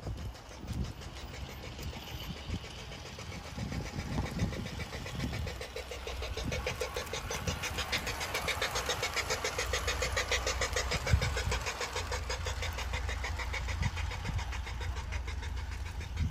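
G-scale Bachmann Big Hauler 4-6-0 model steam locomotive running along garden-railway track: its electric motor and gearing whir while the wheels click rapidly and evenly over the rails, loudest in the middle as the train passes close.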